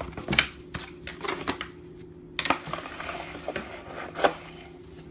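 Unboxing handling: several sharp clicks and knocks as small hard items, the phone and box pieces, are picked up and set down on a table, with a brief rustle in the middle.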